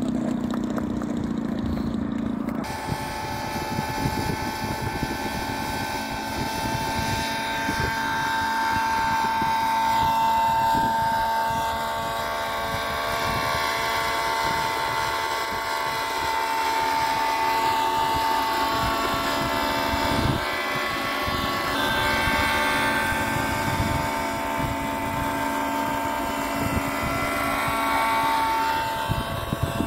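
Radio-controlled model helicopter flying, its engine and rotor a steady whine that drifts slightly up and down in pitch. For the first couple of seconds a lower engine note of a model biplane is heard instead.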